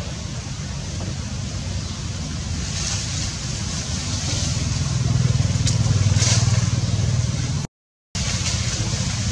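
Low, steady rumble of a motor vehicle engine running nearby, growing louder past the middle, with a brief dropout of all sound near the end.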